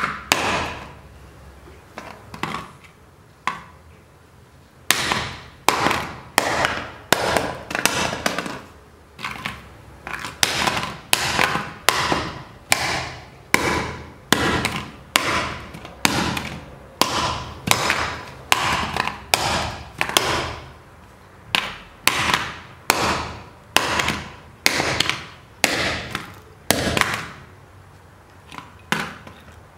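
A hammer repeatedly striking a 3.5-inch hard drive on a paving stone, sharp metal blows with a short ring. A few light knocks come first, then from about five seconds in steady blows at roughly two a second with brief pauses, as the drive's casing breaks apart.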